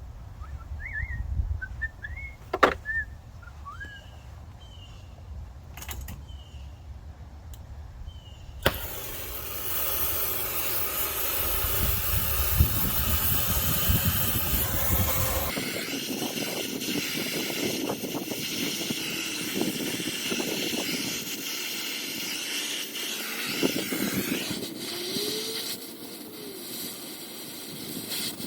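Brazing torch lit with a sharp click about nine seconds in, then its flame hissing steadily while copper refrigerant line fittings are brazed. Birds chirp briefly and a low hum runs beneath before the torch comes on.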